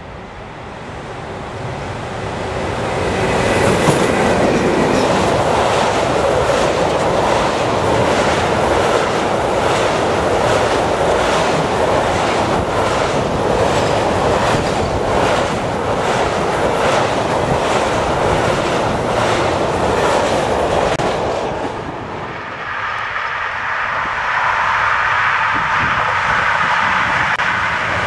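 Electric freight locomotive and a long train of log-loaded wagons approaching and passing close by at speed: it grows louder over the first few seconds, then holds a steady rush of wheels with a regular clickety-clack over rail joints. About 22 seconds in it changes abruptly to another train running past, a steadier, higher-pitched rush.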